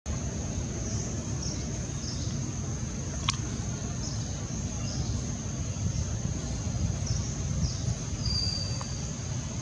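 Outdoor tree-canopy ambience: a steady high insect drone over a low rumble, with faint short chirps every second or so. A single sharp click comes about a third of the way in.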